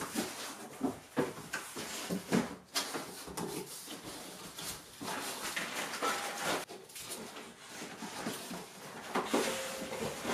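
Large cardboard box being opened and rummaged through by hand: flaps rustling and scraping, irregular knocks, and a couple of short squeaks as the packing inside is moved about.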